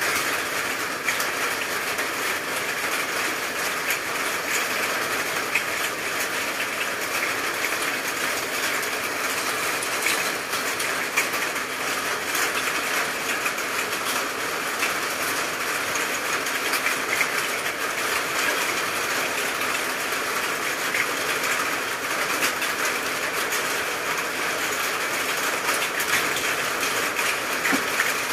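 Steady rain falling: a dense, even hiss with many small drop ticks, unchanging throughout.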